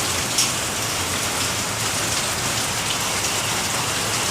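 Heavy rain and hail coming down steadily, an even hiss with a few sharp ticks standing out from it.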